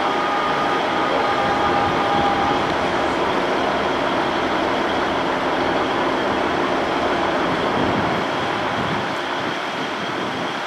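Class 66 diesel locomotive with its EMD two-stroke V12 engine running as it hauls an engineering train slowly along, with a steady low rumble under the engine noise and a slight easing near the end.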